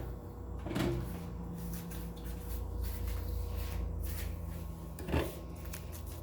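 Microwave oven: its door shuts with a knock just under a second in, then the oven runs with a low steady hum, and a second knock comes about five seconds in.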